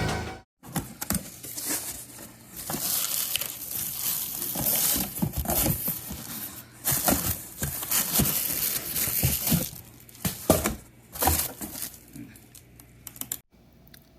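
Packaging being opened and unwrapped by hand: packing material crinkling, rustling and tearing in irregular bursts, stopping abruptly near the end.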